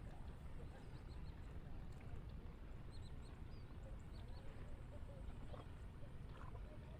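Faint outdoor ambience: scattered short, high chirps of small birds over a steady low rumble.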